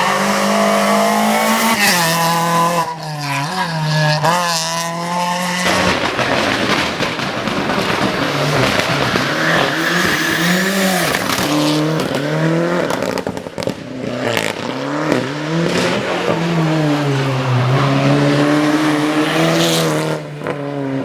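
Competition rally cars driven hard up a hill-climb course: engines revving high and dropping back repeatedly through gear changes and corners, with some tyre squeal. The sound cuts abruptly from one car to another about six seconds in.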